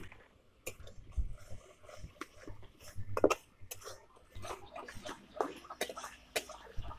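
Steel spatula scraping and knocking against a steel kadai, irregular clinks and scrapes, as a thick spice masala is stirred and fried down with a little water.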